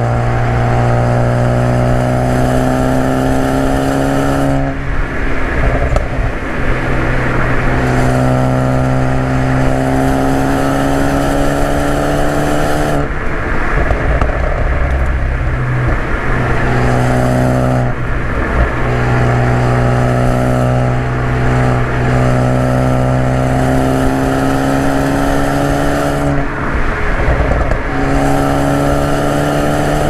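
Ford Focus ST's turbocharged 2.0-litre four-cylinder pulling hard on a stage 3 tune, heard from inside the cabin, its note climbing slowly through each gear. Four times the pull breaks off on a lift or shift into a short noisy patch of exhaust crackles and pops from the tune's crackle map.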